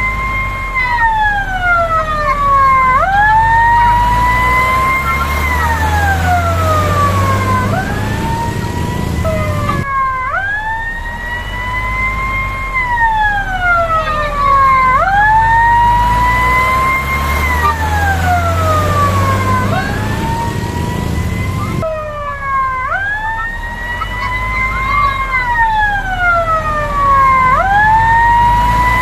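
Fire truck siren wailing, a slow rise and fall in pitch that repeats about every four seconds, over the low rumble of the truck's engine. The wail breaks off and restarts abruptly twice, about ten and twenty-two seconds in.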